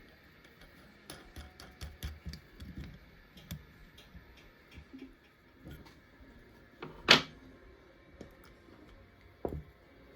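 Small hard objects being handled: scattered light clicks and taps, then one loud sharp knock about seven seconds in and a smaller knock near the end.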